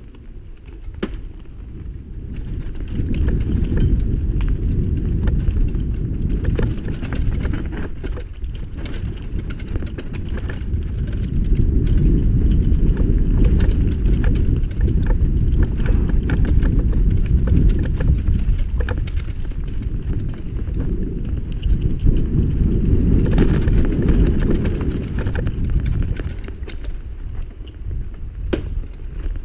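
Mountain bike riding fast down a dirt and gravel trail, heard through a bike-mounted camera: a constant low rumble of wind and tyre noise with frequent rattling clicks from the bike and trail stones. The rumble builds over the first few seconds and eases briefly twice.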